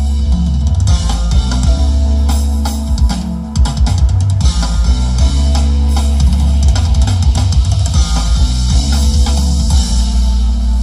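A song with drum kit, guitar and heavy bass played loud through a line-array PA system with cardioid subwoofers, picked up by a phone's built-in mic. The deep bass runs under the track, broken briefly by a quick run of drum hits about four seconds in.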